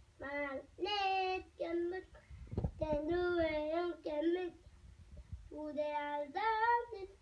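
Young boys singing a tune in drawn-out held notes: three phrases with short breaks between them.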